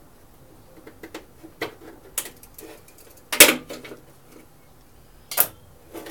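Parts of a Briggs and Stratton mower engine being worked loose and handled as the gas tank and cover come off: scattered clicks and knocks, with a sharp clank about three and a half seconds in and another shortly before the end.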